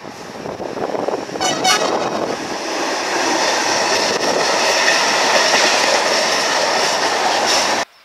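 Freight train locomotive's horn giving two short blasts about a second and a half in, a driver's greeting. Then the loud steady rumble and clatter of container wagons rolling past close by, cut off abruptly near the end.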